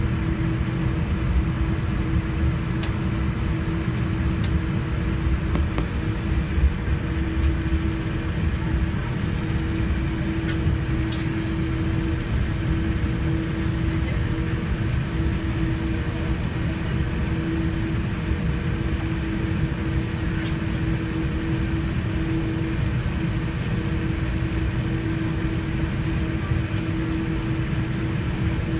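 Cabin noise inside a Boeing 787-9 airliner with the engines running: a steady low rumble and airflow roar with a constant hum under it.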